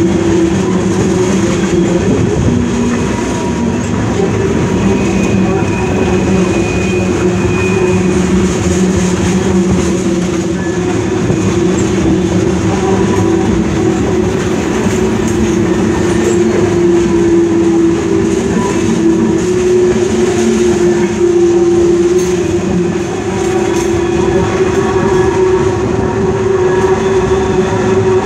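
Freight train of loaded tank cars rolling past: a steady rumble of steel wheels on the rails with a continuous low drone underneath.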